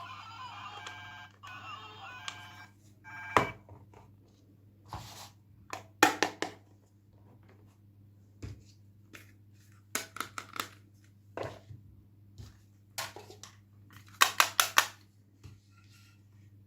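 An electronic ringtone-like ringing tune plays for about three seconds and then stops. A series of sharp clicks and knocks from handling follows, some in quick clusters, over a low steady hum.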